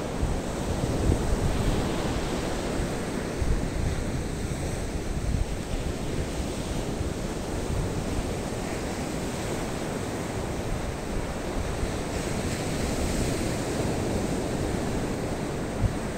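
Surf from a rough sea breaking and washing up a sandy beach in a steady rush, with wind rumbling on the microphone.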